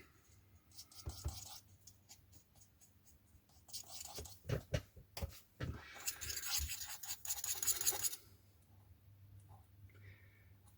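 Paintbrush bristles stirring and scraping in a small dish, mixing oil paint and thinners into a wash. A few light taps come first, then steady scratching for about two seconds past the middle.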